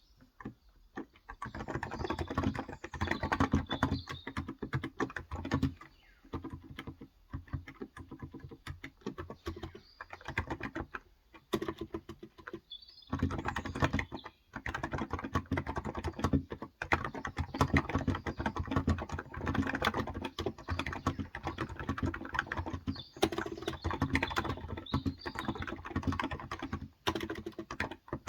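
Fast typing on a Cox Endeavor tenkeyless keyboard with contactless (Topre-style electrostatic capacitive) 35 g switches: dense runs of keystrokes broken by a few short pauses.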